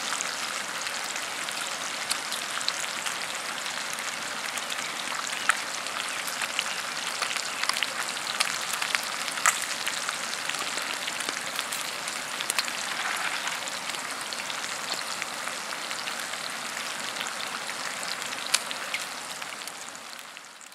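Bacon frying in grease in a cast iron skillet over a campfire: a steady sizzle with scattered sharp pops and crackles, fading out near the end.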